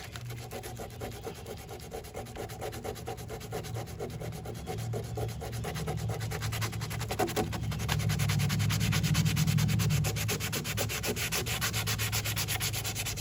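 Sandpaper being worked by hand over cured body filler on a car body panel, in quick, steady back-and-forth scraping strokes that get louder past the middle. The filler is being sanded down flat over filled rivet holes.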